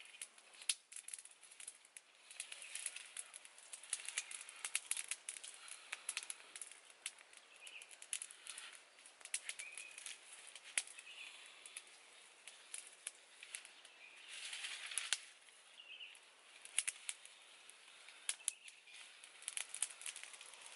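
Small wood fire crackling with irregular sharp pops, along with the rustle and snap of dry twigs and leaves as the fire is tended.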